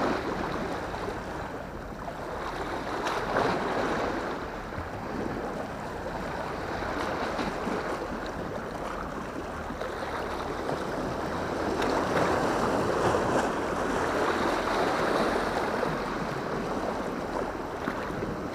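Sea waves washing against breakwater rocks: a steady rushing that swells and eases every few seconds.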